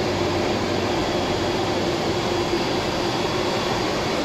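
Steady cockpit noise of a Beriev Be-200 amphibious jet in low flight over water: the constant drone of its two turbofan engines and rushing air, with a steady mid-pitched hum running through it.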